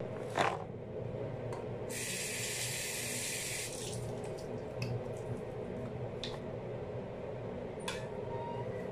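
Bathroom sink tap running briefly, a hiss of water for about two seconds, with a few small clicks from handling a toothpaste tube and its cap over a steady background hum.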